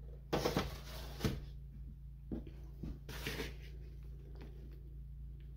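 Hands scooping and squeezing crumbly bath bomb mixture in a plastic bowl. Two short rustling bursts come about half a second in and about three seconds in, with a knock in between, over a steady low hum.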